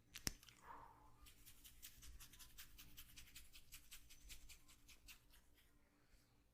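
Close-up massage hand sounds: one sharp click just after the start, then a long run of faint, quick, crisp crackles from fingers working over skin and hair.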